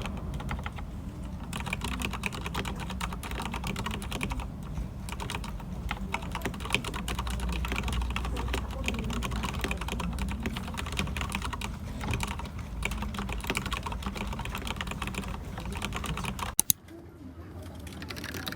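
Fast, continuous typing on a mechanical keyboard with red linear switches (Dugard x Thinkway Tochef). The typing stops abruptly after two sharp clicks about two seconds before the end.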